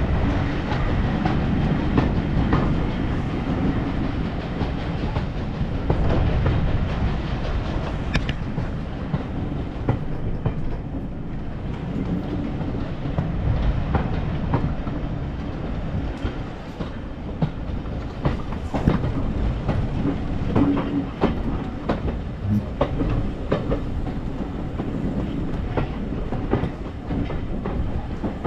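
Train running along the track: a steady low rumble with sharp clicks and knocks of the wheels over the rails, more frequent in the second half.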